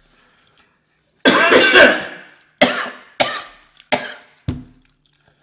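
A person coughing hard after food or drink went down the wrong pipe while eating a spicy seafood boil: one long coughing fit about a second in, then four sharp single coughs about two-thirds of a second apart.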